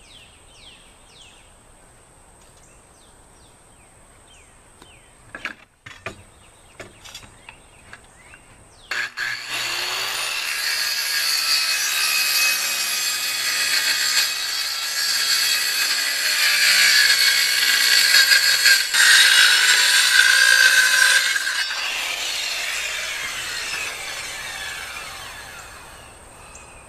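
Electric circular saw cutting through a wooden board for about twelve seconds, starting abruptly, then the blade winding down with a falling pitch as it coasts to a stop. Before the cut, a few bird chirps and several sharp knocks.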